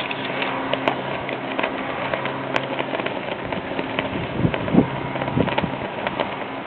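Big Chute Marine Railway boat carriage in operation: a steady machinery hum with many scattered clicks and clacks, and a few heavier knocks past the middle.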